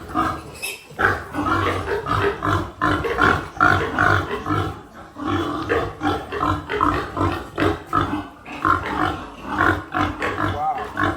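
Piglets calling without pause, a rapid string of short, loud pig calls with no break.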